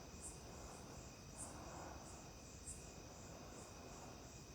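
Near silence, with a cricket chirping faintly in short high chirps about once a second.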